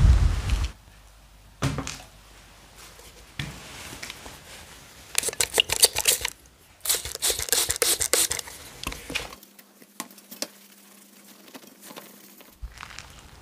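A cloth rag rubbing and wiping over a painted metal exhaust muffler, in two scratchy, rustling bouts midway through, with scattered light knocks of handling the part.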